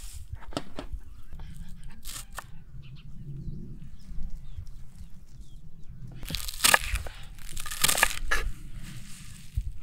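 Kitchen knife chopping fresh green stalks and leaves on a wooden cutting board: a few scattered cuts at first, then a quick run of louder chopping strokes from about six seconds in.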